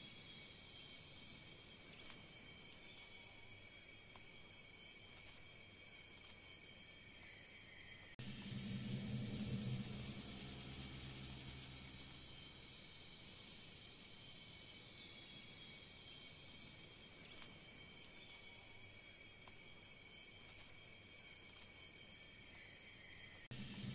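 Steady chorus of crickets trilling in several high pitches. About eight seconds in, a louder low buzz joins for some four seconds, and it starts again just before the end.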